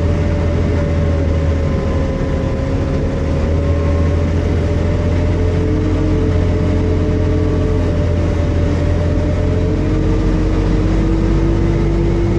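John Deere road grader's diesel engine running steadily under way, heard from inside the cab: a deep drone with a whine that drifts slowly in pitch.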